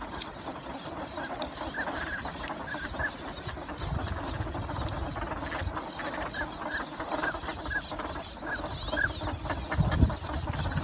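A flock of wild ducks, mostly northern pintails, calling on the water: short high notes in quick runs, over a steady background of flock and water noise. A louder low sound comes in near the end.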